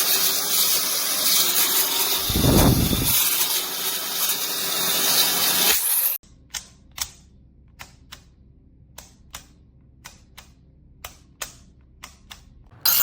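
Compact travel hair dryer blowing, a steady rush of air with a low rumble of air buffeting the microphone about two and a half seconds in. It cuts off suddenly about six seconds in, leaving scattered light clicks and taps of the dryer being handled, and a brief blast of air near the end.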